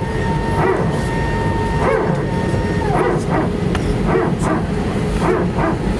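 Steady cabin rumble of an Airbus A319 on the ground, with a steady whine that stops about three seconds in. Over it, a run of short high yelps comes about twice a second and is the loudest sound.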